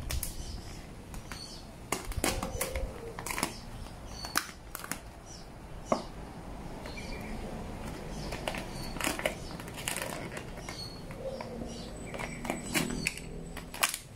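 Vinyl wrap film crinkling and crackling, with irregular sharp clicks, as it is pulled taut by hand and smoothed down with a squeegee.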